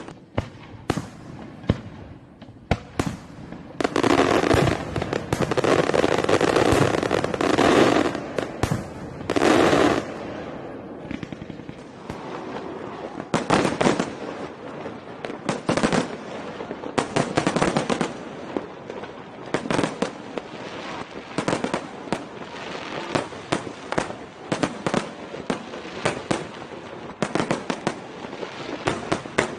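Fireworks going off: a dense barrage of bangs and crackling from about four to ten seconds in, then scattered single bangs.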